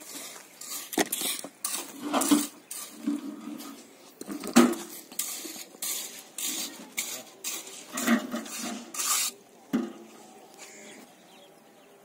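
Stones knocking and clinking together as they are set by hand in a foundation pit, with short scraping sounds between the knocks; the knocks are irregular, the loudest about halfway through, and they die away near the end.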